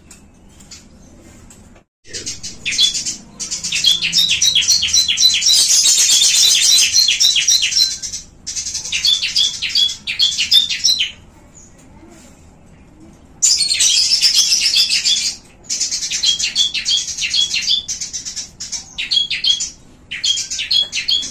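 Caged small songbirds chirping in long, fast runs of rapidly repeated high notes. The runs start about two seconds in, break off for a couple of seconds near the middle, then resume in several shorter bursts.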